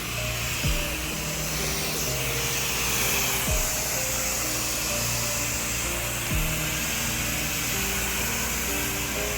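Pressure washer spraying water with a steady hiss, under background music: a melodic line with a falling bass drop about every three seconds.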